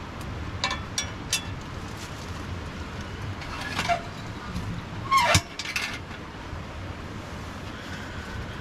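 A few short metallic clicks and knocks of cookware, the loudest a little after five seconds, over a steady low rumble.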